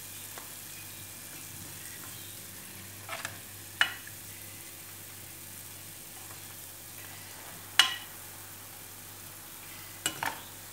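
Hot oil sizzling steadily as sesame-coated binangkal dough balls deep-fry in a small pan. A few sharp clinks, about 3, 4, 8 and 10 seconds in, are the metal slotted spoon knocking on the pan as the balls are lifted out.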